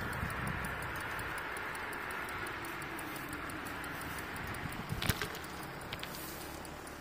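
Bicycle rolling along, with steady tyre and wind noise, a light ticking throughout, and a sharp rattle or knock about five seconds in.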